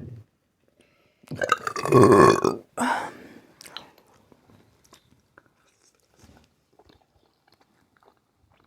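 A person lets out one loud, drawn-out burp about a second in, lasting over a second, with a short tail right after it; then quiet chewing of food.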